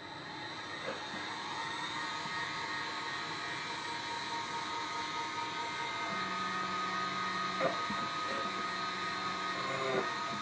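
CNC machine running with a motor whine that rises in pitch over the first two seconds and then holds steady. A lower hum joins about six seconds in, and a few clicks sound along the way.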